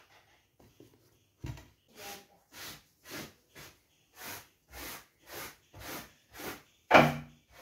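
Brushing strokes swept across a cloth bedsheet, repeating about twice a second, with one louder stroke near the end.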